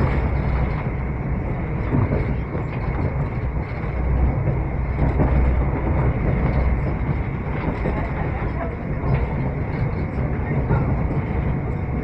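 Passenger train running along the track, heard from inside the carriage: a steady low rumble that doesn't let up.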